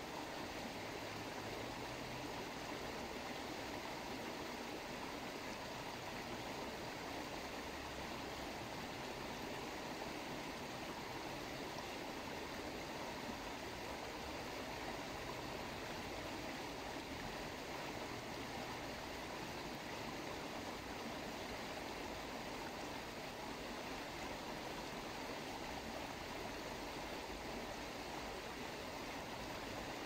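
Running water: a steady, even rush with no breaks or changes.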